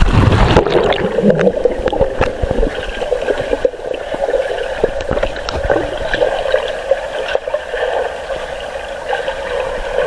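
Water gurgling and sloshing close to the microphone, with scattered small clicks.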